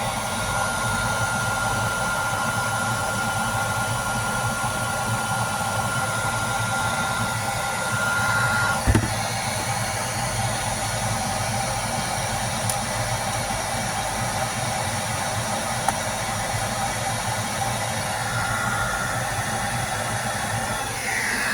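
Hair dryer running steadily on a frosted-over refrigerator ice maker to melt the ice, blowing through a PVC pipe. A thin high whine in the noise stops with a short bump about nine seconds in.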